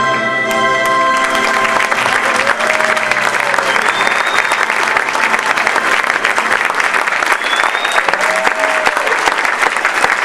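Audience applauding, rising in as recorded music ends about a second in.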